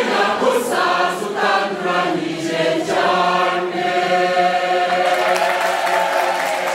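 Mixed choir of men's and women's voices singing in Kinyarwanda: short sung syllables for about three seconds, then one long held chord.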